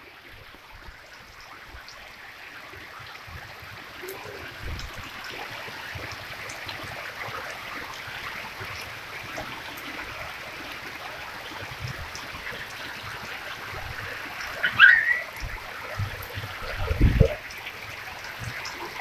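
Steady rain falling, with water trickling. Two short, louder sounds break through about three-quarters of the way in.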